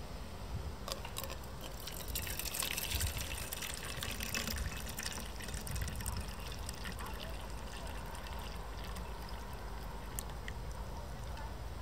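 Water pouring from a stainless steel kettle's spout into a metal cup, a thin stream splashing and trickling into the filling cup. The pour starts about a second in, is heaviest just after, then settles to a steadier trickle.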